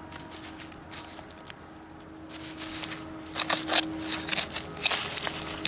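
Hori hori digging knife scraping and crunching through garden soil while potatoes are dug up. A run of rough scrapes and clicks comes in the second half.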